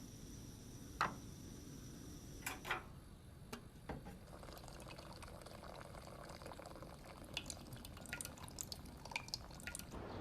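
Scattered light clicks and taps, with a soft trickle of water from about halfway through.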